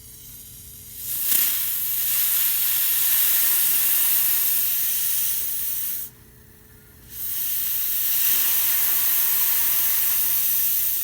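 Steam hissing out of a La Pavoni lever espresso machine's steam wand as it is opened to vent the boiler. There are two long bursts: the first starts about a second in, and the second starts about a second after the first stops.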